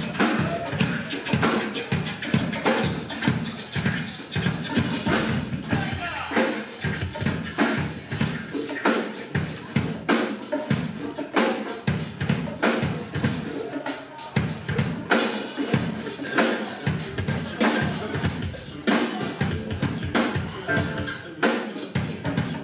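Drum kit played live in a fast, busy groove, with hits coming several times a second.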